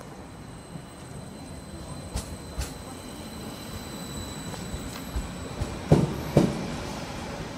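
Greater Anglia Class 745 electric multiple unit rolling past at arrival speed, with steady running noise that grows louder. Its wheels knock over the track in pairs about half a second apart: a faint pair about two seconds in, then a louder pair near the end as the cab passes.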